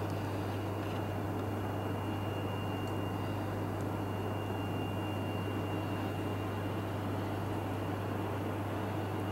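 Steady low electrical hum with an even background hiss and a faint high whine, unchanging throughout, from the recording equipment; the larva's biting is not heard.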